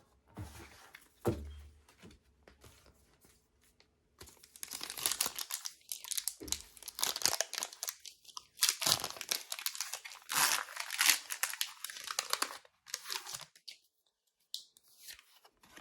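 Foil booster-pack wrapper being torn open and crinkled, in irregular bursts of rustling over several seconds, after a soft thump about a second in.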